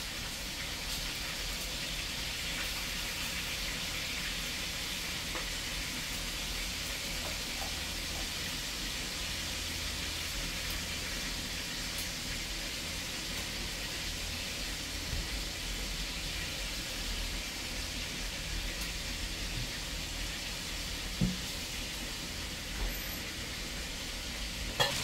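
Seasoned chicken pieces sizzling steadily in hot oil in an aluminium Dutch pot as they brown for brown stew chicken, with a low steady hum underneath and a couple of light knocks near the end.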